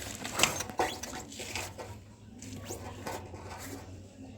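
Scratchy rubbing, scraping and light clicking as metal motorcycle parts are handled and worked on, over a faint steady low hum.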